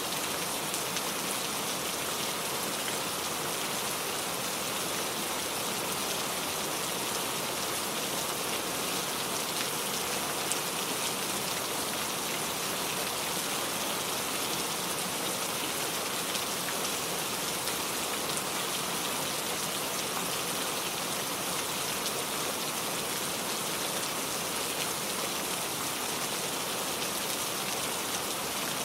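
Heavy rain falling steadily, a dense even hiss of drops on a surface with fine scattered patters.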